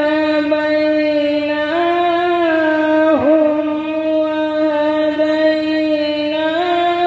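A single male voice reciting a devotional naat, holding one long drawn-out note. The pitch steps up slightly twice, and the note breaks briefly about three seconds in.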